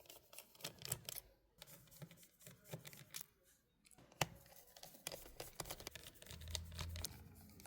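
Faint, irregular clicks and light scraping of a small precision screwdriver working the tiny screws inside a MacBook Air, with a couple of short pauses.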